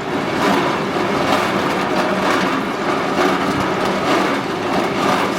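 Continuous charcoal carbonization furnace line running: a steady machinery din with a constant hum and light rattling.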